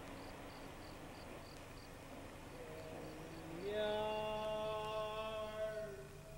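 Crickets chirping steadily at about three chirps a second. About two and a half seconds in, a few low melodic notes step down and then rise into one long held note lasting some two seconds, the opening of a slow song.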